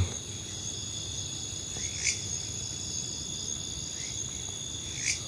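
Crickets trilling steadily and high-pitched in the night, with a few short chirps over the trill.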